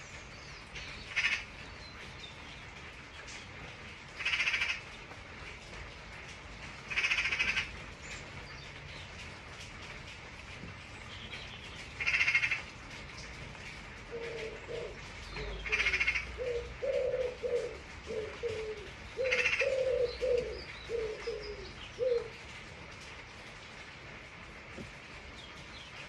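Steady rain with birds over it: six short, harsh calls spread across the stretch, and from about halfway a pigeon cooing in a run of short low notes for several seconds.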